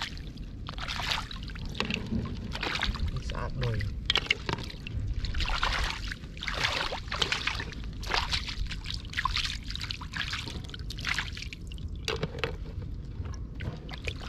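Shallow floodwater sloshing and trickling, in uneven splashy swells about once a second.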